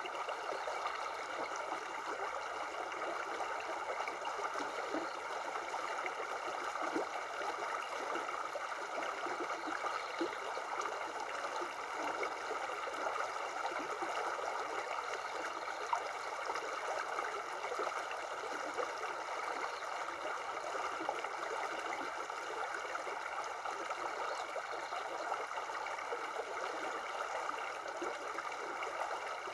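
Shallow river running over stones in a riffle: a steady rush of water with light gurgling.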